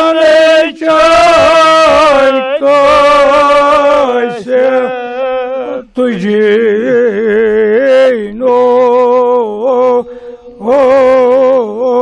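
A man chanting a Kashmiri marsiya, an elegy for Imam Hussain, unaccompanied, in long held notes that waver up and down, with short pauses for breath between phrases.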